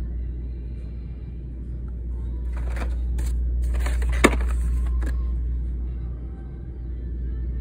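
Blister-packed toy cars being shuffled in a cardboard case: a run of plastic clicks and rustles in the middle, with one sharp click about four seconds in, over a low steady rumble.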